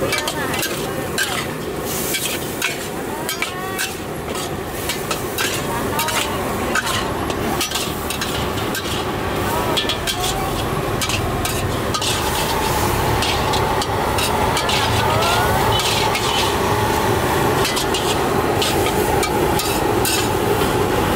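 Stir-frying in a large steel wok: the food sizzles in hot oil while a metal ladle repeatedly scrapes and clanks against the wok. A steady hum joins about halfway through.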